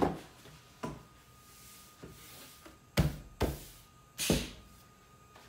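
A large sheet of mat board handled on the bed of a computerized mat cutter: a brushing slide and a few sharp slaps and thumps as it is laid down and pushed against the stop rail, the loudest three coming close together between about three and four and a half seconds in.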